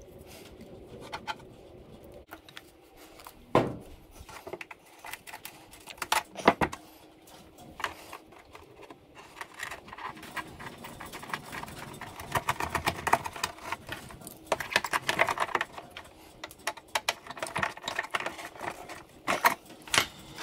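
Workbench handling noises: scattered clicks, taps and knocks of small parts and hand tools being picked up and set down, with two sharper knocks early on and runs of rapid light clattering past the middle and near the end.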